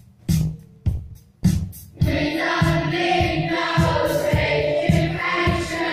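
Music playing from a vinyl record on a Technics SL-1900 turntable: for about two seconds a sparse beat of bass and drum hits with gaps between, then the full band and singing come in together.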